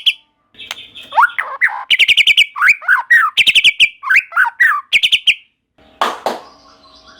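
White-rumped shama singing: fast rattling trills of rapid repeated notes alternating with swooping whistled phrases. About six seconds in comes a brief harsh noise, then a faint steady hum.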